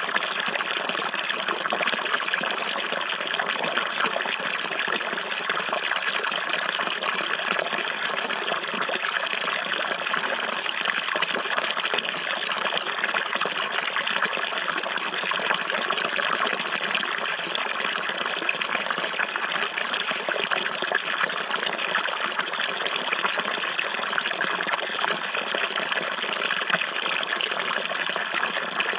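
Running water, a steady flowing and splashing stream with no change or break.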